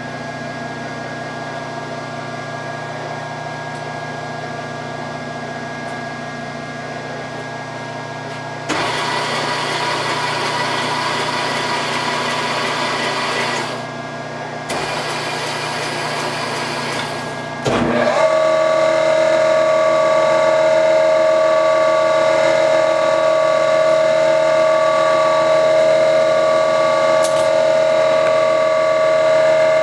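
Grand Rapids 8 x 24 surface grinder's electric motors running: a steady hum, joined by a second, noisier motor switched on about 9 seconds in, which stops briefly near 14 seconds. With a click about 18 seconds in, a louder steady whine starts up and runs on.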